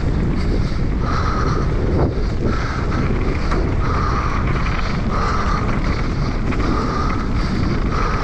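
Wind buffeting the mountain bike's camera microphone and knobbly tyres rolling over dry dirt singletrack at race speed. A higher buzz pulses on and off about once a second.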